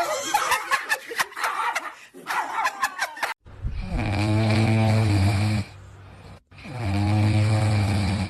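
Loud snoring from a pet: two long snores, each about two seconds, with a short pause between them. Before them, about three seconds of choppy voices.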